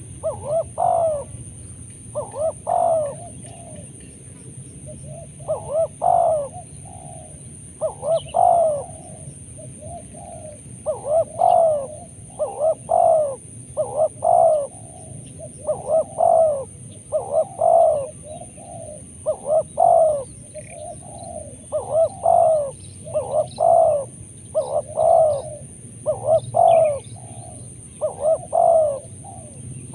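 Spotted dove cooing: a phrase of two or three coo notes repeated over and over, about every one and a half to two seconds, with one short pause a few seconds in.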